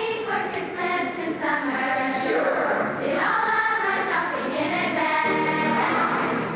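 Middle school choir of boys and girls singing together.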